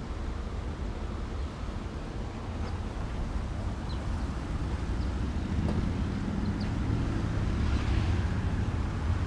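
Wind buffeting the microphone: a steady, uneven low rumble that grows somewhat louder about six seconds in, with a few faint ticks.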